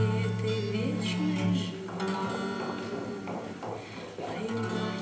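Acoustic guitar strumming and letting chords ring, an instrumental passage with no singing. The chord changes about 2 s in, thins out, and a new strum comes in near the end.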